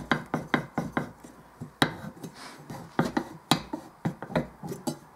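Trumpet's brass main tuning slide being twisted and pulled in its outer tubes, giving an irregular series of sharp clicks, several a second. The slide is breaking loose from the lime and calcium buildup that had it stuck, which the repairer calls a very good sound that means the battle is won.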